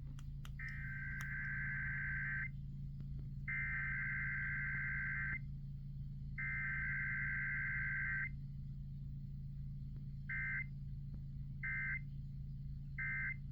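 Emergency Alert System SAME digital data bursts, the buzzy warbling modem tones of an EAS test. Three long bursts about a second apart carry the alert header, and three short bursts near the end are the end-of-message code.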